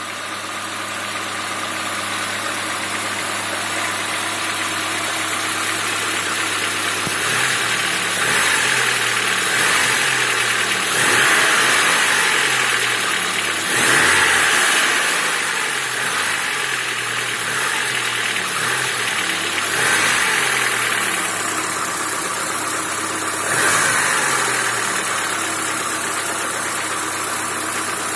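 Lada Niva four-cylinder petrol engine idling, then blipped up in revs about five times and dropping back each time, with the knock in the engine that it is being run to show.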